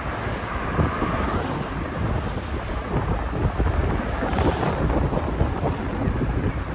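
Wind buffeting the microphone of a phone carried on a moving bicycle: a loud, irregular low rumble over a steady rush of air.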